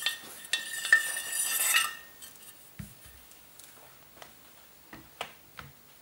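Metal handguard scraping and rattling as it slides off a rifle barrel for about two seconds, with a faint metallic ring, followed by a few soft knocks as the handguard and rifle are set down on a padded mat.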